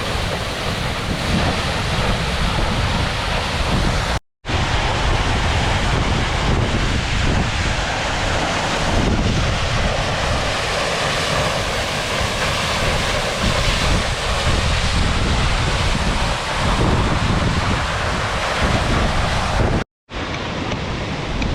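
Steady rush of a waterfall, with wind buffeting the microphone in low gusts. The sound drops out completely twice, briefly, about four seconds in and near the end.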